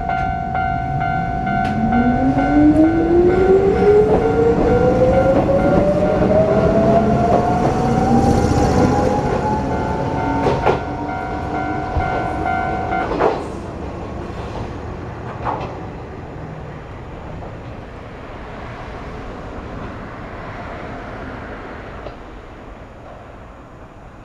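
Level crossing warning alarm sounding while an electric train accelerates through, its motor whine rising steadily in pitch. The alarm cuts off about halfway through, and the train sound fades away.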